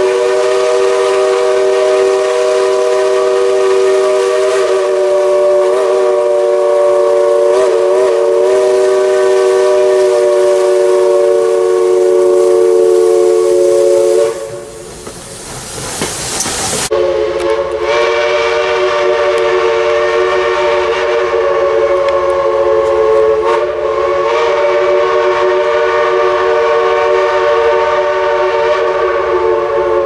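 Steam locomotive's chime whistle blowing a long, loud blast of several notes sounding together, wavering briefly a few times. It breaks off about fourteen seconds in, leaving a loud hiss of steam venting from the cylinder cocks as the engine passes close, then the whistle sounds again and holds.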